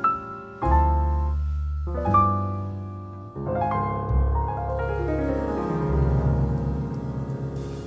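Background piano music: single notes over sustained low chords, with a falling run of notes about halfway through.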